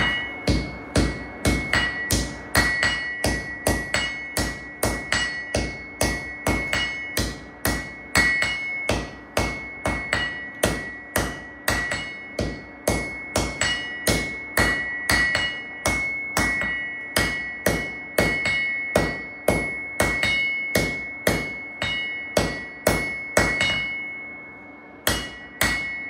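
Hand hammer forging a red-hot C70 carbon-steel knife blade on an anvil, about two blows a second, each blow setting the anvil ringing with a high steady tone. The blows stop briefly near the end, then resume.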